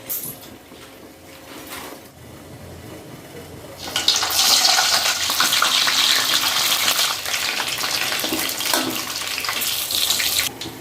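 Water running from a kitchen tap, turned on about four seconds in and shut off suddenly near the end.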